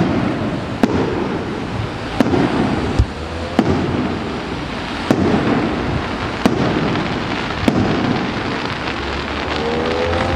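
Aerial fireworks going off in a steady series of sharp bangs, about one every second and a half, over a continuous low noise; the bangs stop near the end.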